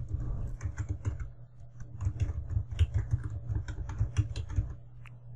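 Typing on a computer keyboard: a quick, irregular run of keystrokes, several a second, over a steady low hum.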